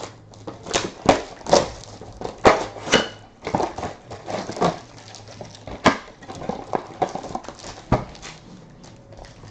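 Trading card box and foil packs being opened and handled: an irregular run of sharp crackles, snaps and rustles.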